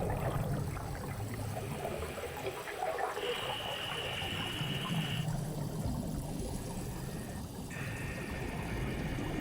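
Underwater ambience sound effect: muffled bubbling and water movement over a low rumble. A steady high-pitched tone comes in about three seconds in for two seconds, and again near the end.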